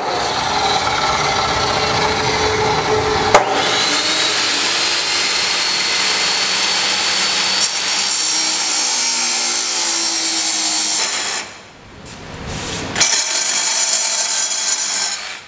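Abrasive chop saw running and cutting through a steel 90-degree tube bend for about eleven seconds, then stopping. About a second and a half later a cordless reciprocating saw cuts tube for about two seconds.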